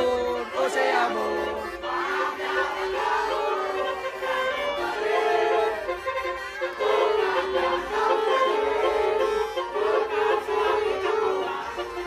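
Music: a melody of held notes stepping in pitch about once a second, over a bass line.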